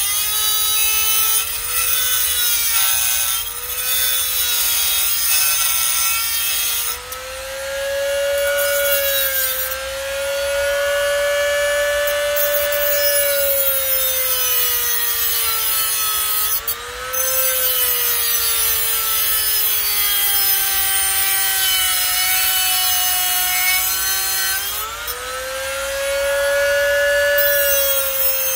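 Handheld mini grinder running continuously as it cuts into a plastic headlight housing. Its motor whine sags and rises in pitch as the cut loads and frees it, with a rasping cutting noise over it.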